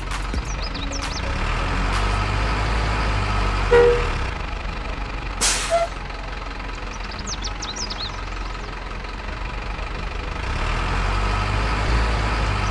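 Steady running truck-engine sound from a remote-control Scania tronton truck. About five and a half seconds in there is a short hiss like an air-brake release.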